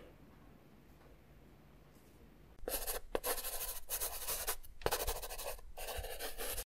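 Near silence for the first two and a half seconds. Then a pen-scribbling sound effect sets in: several short scratchy writing strokes with brief gaps between them.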